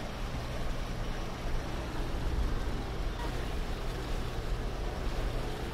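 Wind rumbling on the microphone over a steady wash of ocean water, with a low hum underneath.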